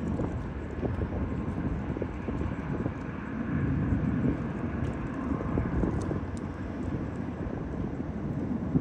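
Uneven low rumble of outdoor background noise at a railway platform, with a few faint ticks.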